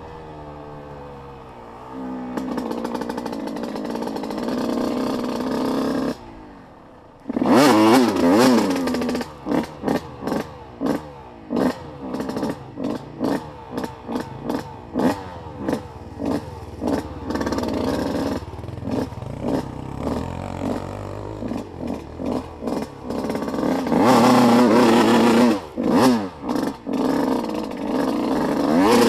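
Off-road vehicle engine running and being throttled over rough ground, the revs rising and falling in many short surges. The engine drops away briefly about six seconds in.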